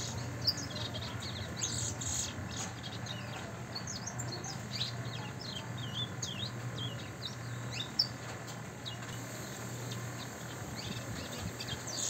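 Caged congo songbird singing in quick, high chirps and short whistled notes with brief pauses between phrases, over a steady low hum. Two sharp clicks stand out, about half a second in and about two-thirds of the way through.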